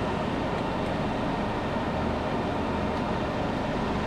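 Steady mechanical whir with a low hum, unchanging throughout, like running machinery or cooling fans.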